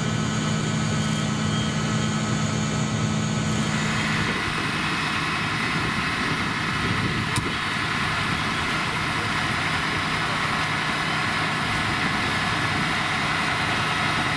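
Fire truck diesel engines running steadily close by. A low, even hum gives way about four seconds in to a brighter, hissier engine sound, with a single sharp click midway.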